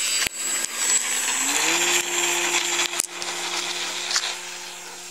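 RC model plane's motor and propeller running at full throttle for takeoff, a steady high whine whose pitch rises about one and a half seconds in. It then grows fainter from about four seconds in as the plane climbs away.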